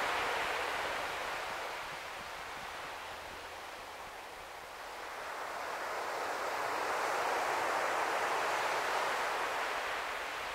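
Surf washing on a beach: a steady hiss that ebbs and then swells again over several seconds, with no firework bangs heard.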